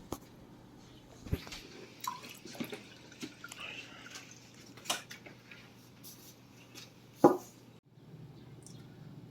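Scattered light clicks and taps in a small room, with one sharper knock about seven seconds in.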